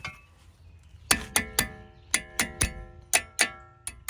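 Sharp metal-on-metal strikes on the front brake assembly, each leaving a bell-like ring. There are about nine, in three quick groups of three, starting about a second in, as a brake part is knocked into place.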